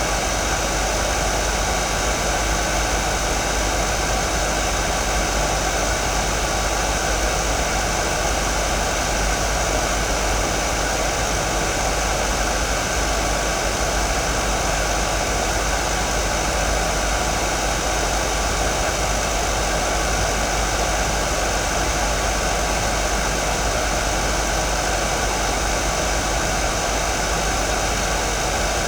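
Hair dryer running steadily: an even rush of blown air with a few faint steady tones in it and a low rumble underneath, unchanging throughout.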